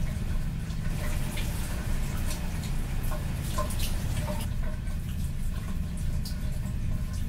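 Bathroom sink tap running while water is splashed by hand, with scattered small splashes and drips over a steady low hum.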